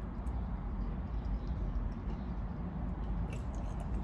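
Chewing, with a few faint mouth clicks, over a steady low rumble.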